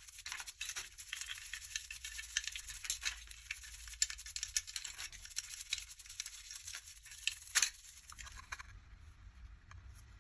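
Toothbrushes scrubbing plastic and metal model car parts in tubs of soapy water: a rapid wet scratching with many small clicks. There is a sharper knock about seven and a half seconds in, and the scrubbing stops near the end.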